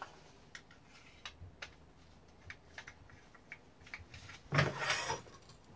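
Light clicks and small knocks of a Husqvarna 357 chainsaw's parts being handled during teardown on a workbench, with a louder clatter about four and a half seconds in.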